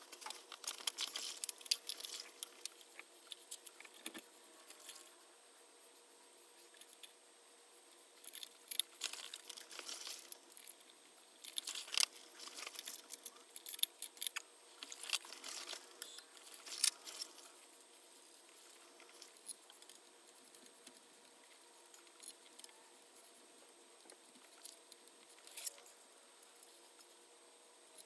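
Intermittent light clicking and rustling in clusters, with quieter gaps between, over a faint steady hum.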